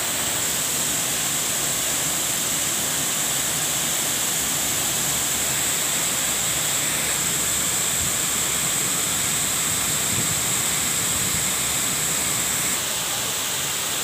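Waterfall pouring into a pool, a steady rushing of falling water with a constant high hiss; it gets slightly quieter near the end.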